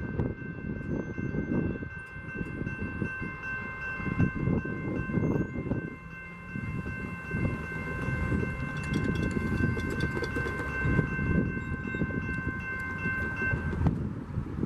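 A train passing close by, with a low rumble of wheels on rails and irregular clicks. Over it, several steady high tones sound together as one chord, held for most of the time and cutting off near the end.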